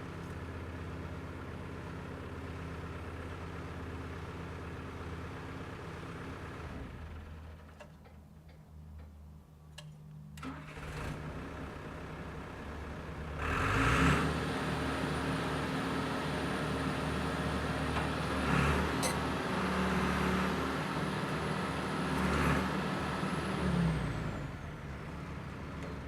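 1996 John Deere 490E excavator's diesel engine idling, then shut down about seven seconds in. It is restarted a few seconds later and runs with a thin high whine, rising briefly twice before settling back down near the end.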